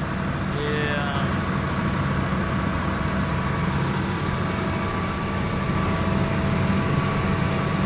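Heavy engine idling steadily: a constant low rumble with a faint even hum above it.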